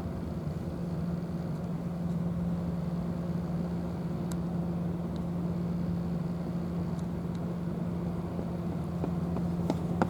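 A steady low engine hum with an even, unchanging tone, and a few short clicks near the end.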